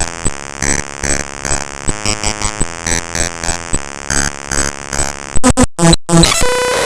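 Raw bytes of the Microsoft WordPad program played back directly as audio: a harsh, buzzing electronic drone with rapid clicks and pitches that shift every fraction of a second. A little over five seconds in it breaks into a few loud chopped bursts, then settles into a steady tone.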